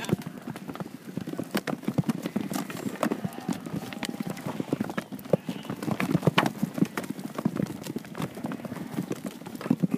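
Hooves of a steady stream of sheep, ewes and lambs, trotting through a chute on dirt: a rapid, irregular clatter of many hoof-falls.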